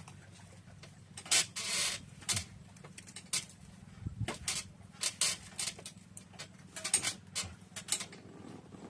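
A run of irregular short, sharp clicks and taps, with a longer rustle about a second and a half in.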